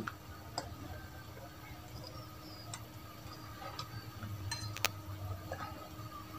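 Soldering iron and wire handled on an amplifier circuit board: a few scattered light clicks and taps, over a faint steady hum.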